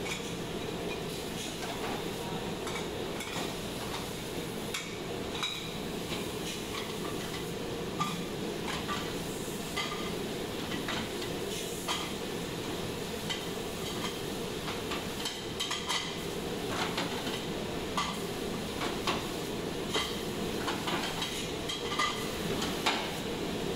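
Ceramic plates and bowls clinking against each other and a plastic dish rack as they are loaded, with water spraying from a pre-rinse hose onto a stainless-steel counter, over a steady machine hum. The clinks come irregularly and grow more frequent in the second half.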